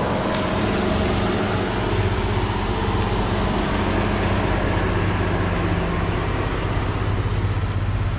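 Chevrolet Silverado pickup's engine idling steadily with an even low throb.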